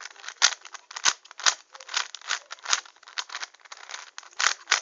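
Plastic 4x4 Rubik's cube clicking and clattering as it is twisted and worked apart by hand, with irregular sharp clicks about two or three a second.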